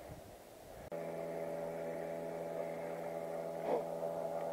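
A steady, even hum with a stack of overtones begins abruptly about a second in, after a faint outdoor background.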